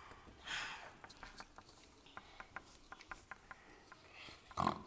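Faint scattered light taps and rustles of small plastic toy pigs and paper stick puppets being handled on a paper-covered tabletop. A breathy hiss comes about half a second in and a short louder sound near the end.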